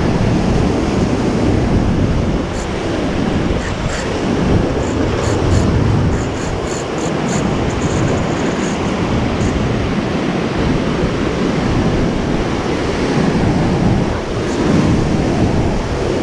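Ocean surf washing against a rocky shore, with wind buffeting the microphone. A run of faint, quick high clicks comes in the middle.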